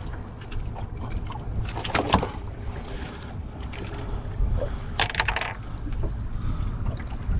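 Small fishing boat at sea: a steady low rumble of wind and water, with a few sharp knocks and clatters about two seconds in and again around five seconds in.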